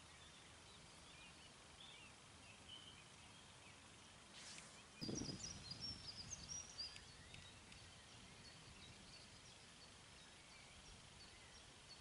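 Near-silent outdoor ambience with faint, scattered high bird chirps. About five seconds in, a soft low rumble comes in along with a brief cluster of brighter chirps.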